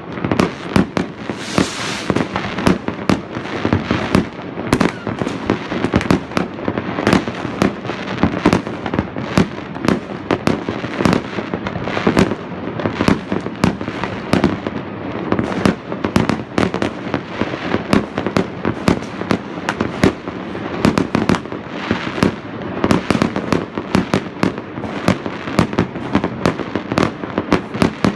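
Many fireworks going off at once across a town: a dense, continuous string of bangs and pops from bursting rockets and aerial shells, with spells of crackling hiss.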